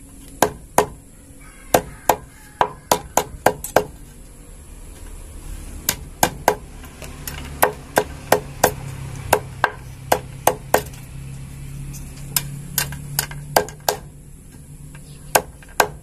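Claw hammer striking steel clothes-hanger wire laid on a wooden beam, hammering the bent wire straight: a few dozen sharp blows in quick runs separated by short pauses.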